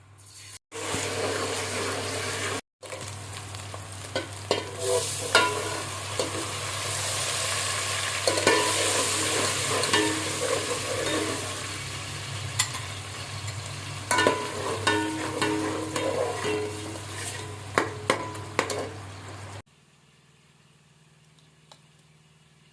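Vegetables sizzling in hot oil in a pan while being stirred, the spoon scraping and knocking against the pan. The sizzling cuts off abruptly about three seconds before the end, leaving faint room tone.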